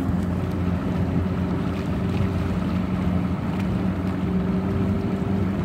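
Fishing boat's outboard motor running steadily at low speed, a constant hum, over wind and water noise.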